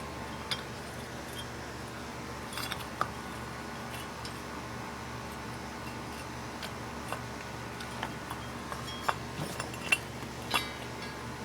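Scattered light metallic clinks and taps from handling the parts of a rusty vintage TAT spinner ceiling fan, irregular, with a cluster near the end, over a steady hiss.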